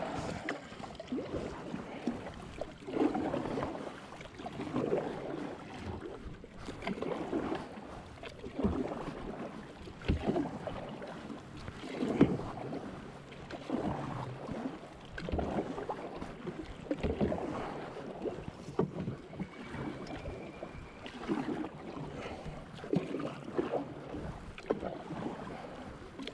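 Canoe paddles dipping and pulling through calm river water, a stroke about every two seconds, with a few sharp knocks, the loudest about twelve seconds in.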